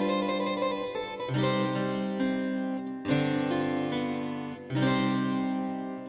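Background music: slow keyboard chords, a new chord struck about every one and a half seconds and left to ring and fade.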